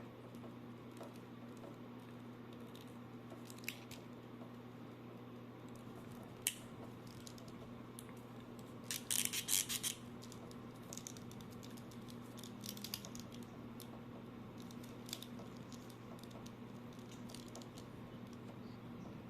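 Small clicks and taps from an action figure and its plastic packaging being handled, with a brief crinkling burst about nine seconds in, over a steady low electrical hum.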